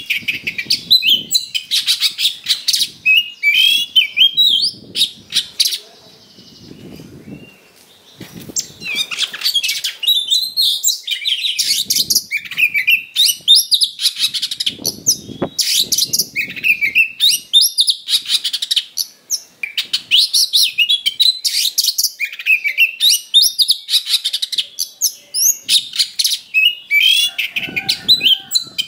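Oriental magpie-robin singing in fast, insistent fighting-mode song: a rapid stream of whistles, chirps and trills, with a short lull about six seconds in before it picks up again.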